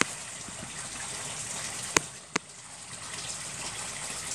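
Water pouring steadily into a koi pond, a constant splashing rush, with two sharp clicks about two seconds in.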